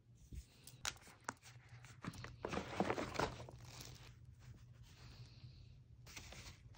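Clear plastic toiletry pouch rustling and crinkling as a sunscreen tube is pushed in and the pouch is handled into a suitcase, with a few light clicks. The handling noise is busiest about two to three seconds in.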